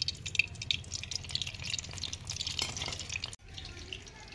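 Hot oil in a kadhai sizzling and crackling as tomato pakoras deep-fry, a dense fine crackle. It cuts out abruptly about three and a half seconds in, then carries on more faintly.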